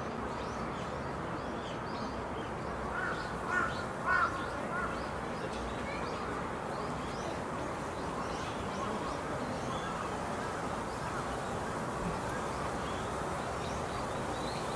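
Outdoor ambience with scattered faint bird chirps over a steady hiss. Two short, louder calls come about three and a half and four seconds in.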